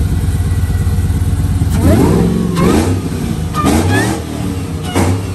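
Pontiac G8's supercharged LSA V8 rumbling as the car rolls past at low speed, its engine note rising briefly about three times with small throttle blips.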